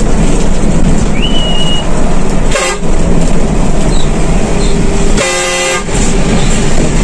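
Loud, steady engine and road noise inside a speeding intercity bus, with a short horn toot about two and a half seconds in and a longer horn blast a little after five seconds in, as the bus closes on and passes another bus.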